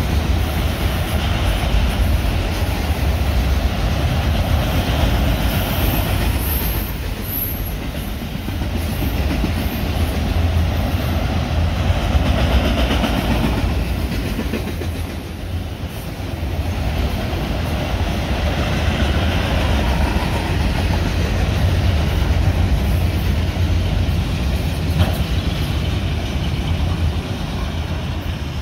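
Autorack freight cars of a long freight train rolling steadily past, with the noise of steel wheels running on the rails.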